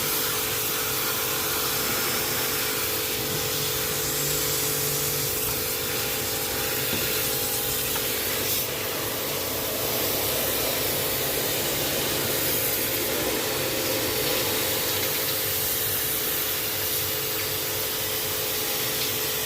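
Water spray hissing steadily against an air conditioner's outdoor unit during cleaning, over a steady pump motor hum.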